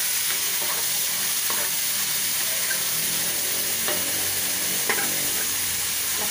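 Raw chicken gizzards frying and sizzling steadily in hot oil in a metal wok, with a wooden spatula knocking and scraping against the pan a few times as they are stirred.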